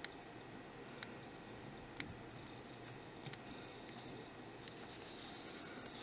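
Faint room tone: a steady light hiss with small sharp clicks about once a second.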